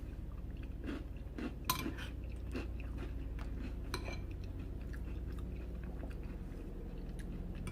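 Close-miked chewing of chunky canned soup, with a few sharp clicks, the loudest about two seconds in, that fit a spoon against the bowl. A steady low hum runs underneath.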